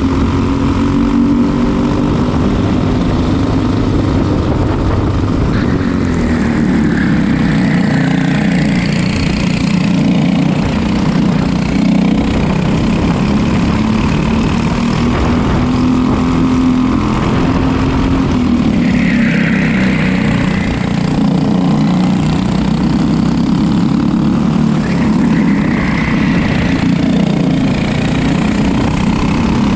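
Racing kart engine running hard on track, its pitch rising and falling with the throttle through the corners.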